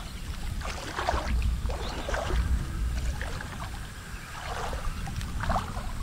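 Shallow water splashing and sloshing in irregular bursts as legs and hands move through a flooded rice paddy and a mesh net is dragged through the water, over a steady low rumble.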